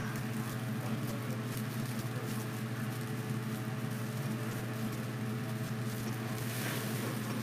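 Light rustling and crinkling of foil deco mesh and ribbon as a wreath is handled and arranged, a little louder near the end, over a steady low hum.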